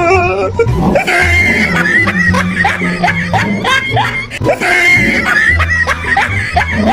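Background music with a steady low beat, and a person's high-pitched cries or laughter repeating quickly over it, about three or four a second.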